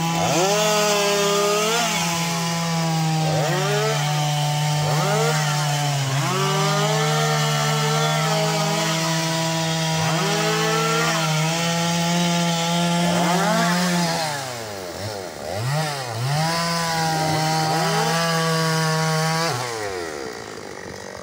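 Stihl chainsaw cutting through felled tree logs at full throttle, its engine note held steady under load for long stretches. The pitch repeatedly dips and swoops back up as the throttle is eased and reopened, most plainly about three quarters of the way through, and it falls back toward idle near the end.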